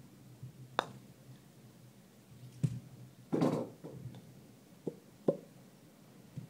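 Sharp clicks of a milled putter face striking golf balls on an indoor putting mat, five in all with uneven gaps between them. A short rustling burst comes about halfway through.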